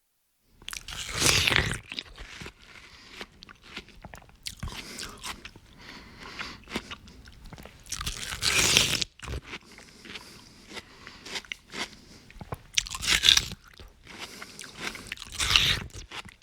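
A person biting into and chewing watermelon close up: wet crunching and smacking, with four loud bites (about a second in, near the middle, and twice near the end) and quieter chewing between them.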